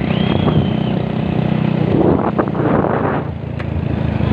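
A motor vehicle's engine running steadily during a ride, with a brief high tone just after the start and a short rush of noise about two seconds in.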